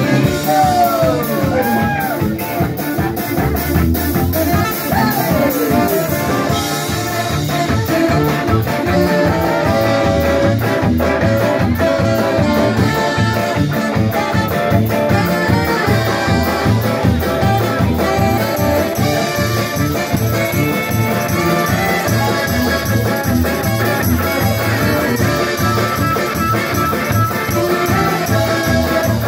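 A live brass-funk band playing: sousaphone, saxophone, drum kit and electric guitar under a steady beat, with a woman singing.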